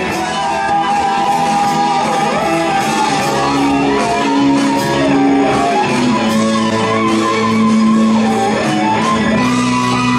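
Live rock band playing an instrumental passage: an electric guitar leads with held and bending notes over bass and drums.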